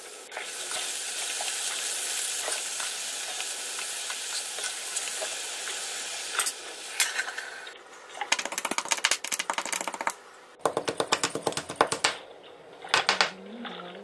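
A steady hiss for about the first six seconds, then garlic cloves pounded with a pestle in a mortar: quick runs of sharp strikes with short pauses between them.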